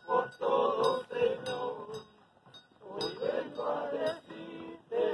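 A group of people singing a religious song in Spanish, in phrases with short breaks, with repeated metallic clinking over the singing.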